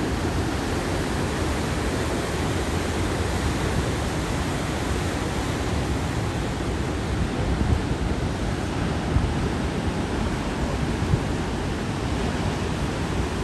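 Ocean surf breaking: a steady rush of waves and whitewater, with some wind rumble on the microphone in the middle.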